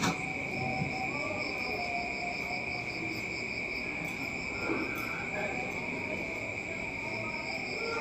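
Crickets trilling steadily in one continuous high note, with a fainter pulsing trill above it.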